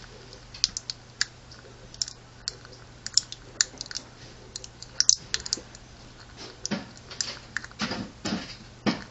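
Irregular sharp clicks and pops, a few a second: the sputtering crackle of a cotton wick burning in melted petroleum jelly in an aluminum can stove. A few longer, softer rushes come in near the end.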